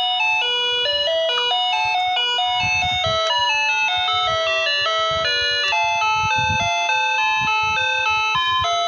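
Baoji wireless doorbell receiver playing one of its built-in electronic tunes: a steady melody of bright, beeping notes stepping up and down without a break.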